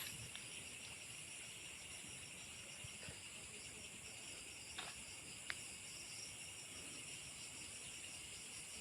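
Steady night chorus of crickets and other insects, a high-pitched trill held in several pitches, with two faint clicks a little past halfway.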